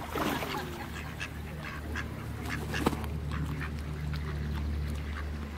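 Ducks on a pond quacking now and then in short calls, over a steady low rumble.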